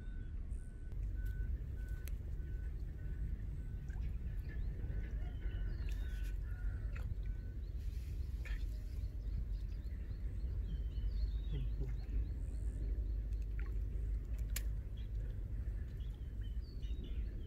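Pondside ambience: a steady low rumble, with a faint high pip repeated two to three times a second for the first seven seconds or so, and scattered short bird chirps.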